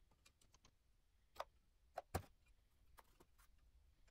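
Faint, scattered metal clicks and taps from a valve spring compressor and pliers on a D24 diesel cylinder head as valve spring keepers are taken out, the loudest clicks about one and a half and two seconds in.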